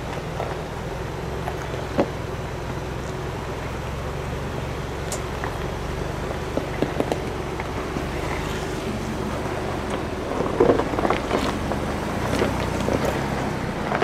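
2021 Ford Bronco's 2.7L twin-turbo EcoBoost V6 running at a low, steady crawl while its 35-inch off-road tires roll over rock and gravel, with scattered crunches and knocks of stones under the tires, loudest around ten to thirteen seconds in.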